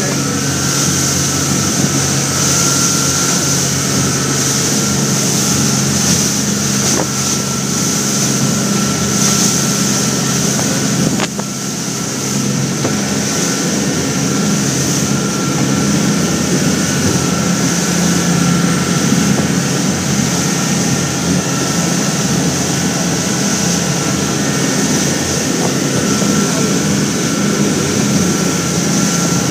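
Motorboat under way at speed: a steady engine drone over the rush of water along the hull and wind, with one sharp knock about eleven seconds in.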